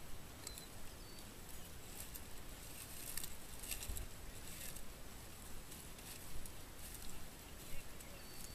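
Footsteps crunching and rustling through dry, matted grass and stubble in irregular crackles, with a few faint short high chirps.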